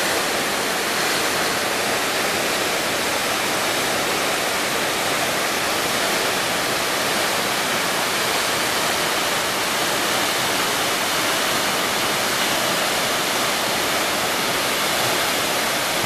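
Tall waterfall plunging into a pool: a steady, even rush of falling water that does not change.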